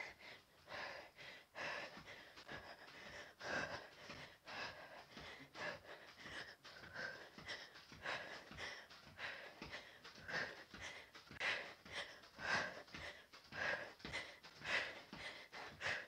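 A woman's heavy, rhythmic breathing as she works through crab kicks, a short breath about every second, growing louder in the second half.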